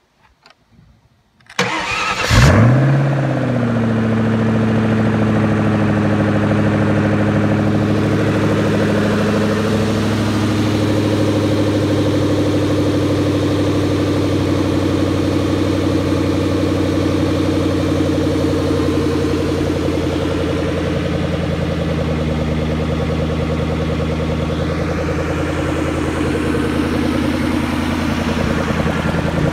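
Supercharged 32-valve V8 from an SVT Mustang Cobra, cranked and firing about a second and a half in, flaring up briefly in revs, then settling into a steady idle.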